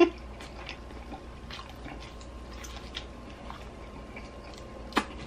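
Faint chewing and small clicking mouth sounds from a person eating steak, with one sharp knock near the end.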